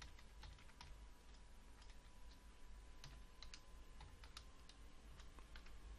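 Faint typing on a computer keyboard: irregular, scattered key clicks as code is entered.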